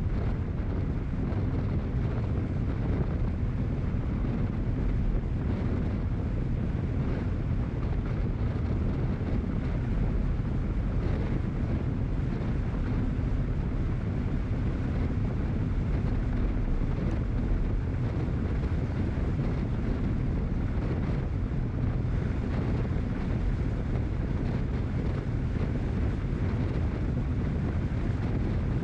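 Steady low rumble of wind buffeting a moving camera's microphone, mixed with road noise, with no distinct engine note or other events.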